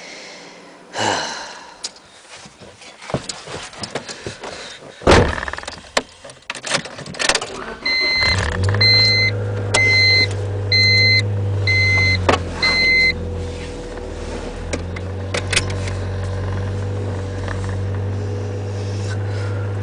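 A car door shuts with a thud, then the car's engine starts about eight seconds in and runs on at a steady idle. Just after the start, a dashboard warning chime sounds six times, a little less than a second apart.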